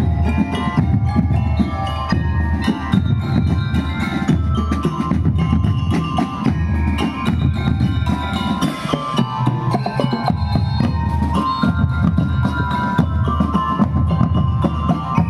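Marching band playing: steady drumming with bass and snare drums under a bell-like melody.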